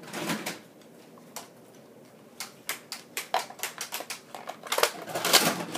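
Hard plastic clicking and clattering from a Nerf blaster and its dart magazine being handled: a scatter of irregular clicks that grows busier and louder near the end.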